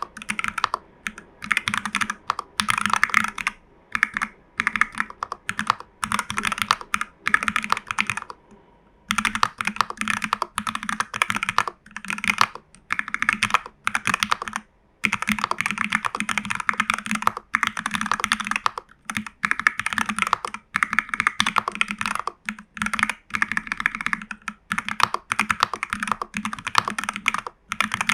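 Typing on a TU40 custom mechanical keyboard with a plastic case, case and PCB foam and a tape mod, fitted with Jelly Strawberry v3 switches, lubed Owlab stabilizers and CRP Cyrillic R keycaps. Fast runs of key presses come in bursts with brief pauses, and a longer pause about eight seconds in.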